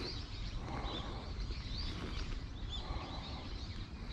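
Small birds giving short high chirps every second or so, over a steady low rumble.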